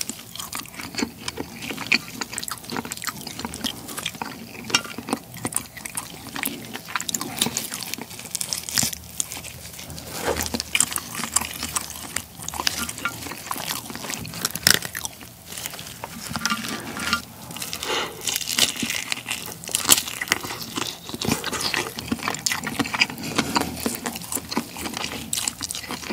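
Close-miked eating of a cooked black tiger shrimp's head: wet chewing and crunching, with the crackle of the shell being pulled apart by gloved hands. Many small clicks run through, with sharper snaps here and there.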